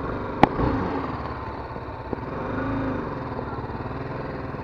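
BMW G 310 GS single-cylinder engine running at low revs, rising briefly and falling back near the middle. A single sharp click about half a second in.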